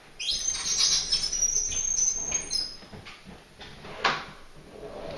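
A refrigerator being shifted across the floor, squeaking and scraping for a couple of seconds, then a single knock about four seconds in.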